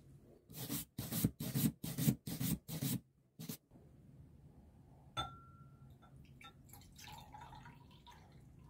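Brass wire brush scrubbed by hand along a rusty metal pen-gun tube: about seven scratchy strokes, roughly two a second. Then a glass beaker clinks with a short ring, and liquid pours into it near the end.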